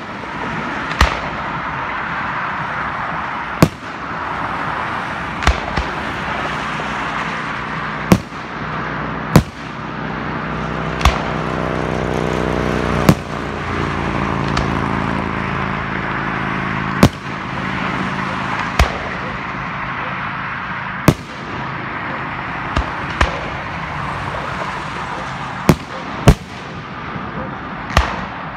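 Aerial firework shells bursting in the sky: about fifteen sharp bangs, one every one to three seconds, over a steady background of noise.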